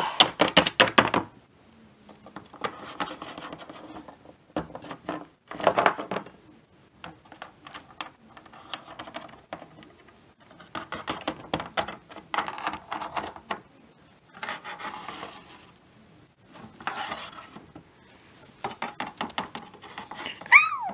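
Small plastic toy figures tapping, clicking and scraping against a plastic playset base as they are picked up and moved by hand, in irregular clusters of ticks with short stretches of rubbing.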